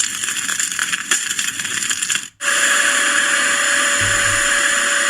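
A white noise machine's speaker playing a crackling campfire track. It cuts out for a moment a little over two seconds in as the next sound is selected, then gives a steady whirring, appliance-like noise with a faint hum.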